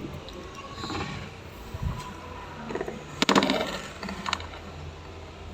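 A few light knocks and clicks of kitchen items being handled and set down, the loudest a short clatter about three seconds in, over a faint steady low hum.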